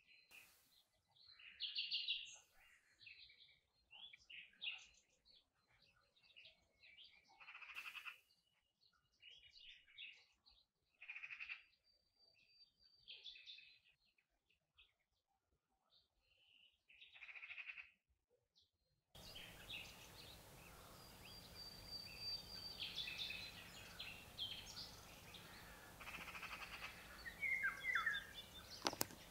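Small songbirds chirping and singing in short, scattered phrases. About two-thirds of the way through, a steady low hiss comes in under the calls as the recording changes.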